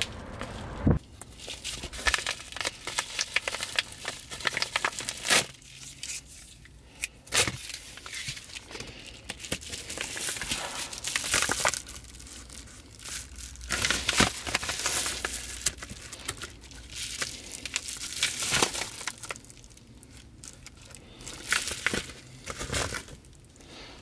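Padded paper envelope crinkling and rustling as it is handled and opened, in irregular sharp crackly bursts with short pauses between.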